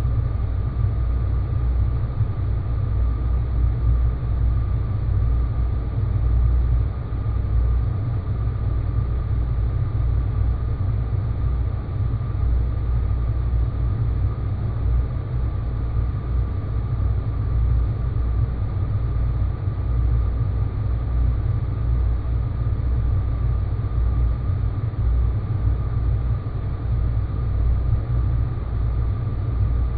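Sci-fi space-planet ambience: a steady deep rumble with a faint high hum held over it.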